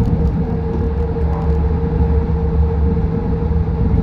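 Busan Subway Line 4 rubber-tyred light-metro train running at speed through a tunnel, heard from inside the train: a steady low rumble with a steady hum over it.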